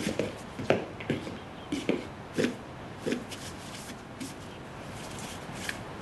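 Footsteps of a person walking across a hard indoor floor, about two steps a second, stopping about three seconds in. A faint tap near the end.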